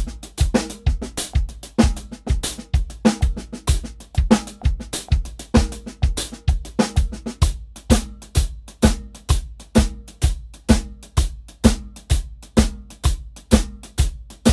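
Drum kit played at a steady 128 beats per minute: bass drum and snare grooves alternating with single paradiddle permutations in eighth-note triplets.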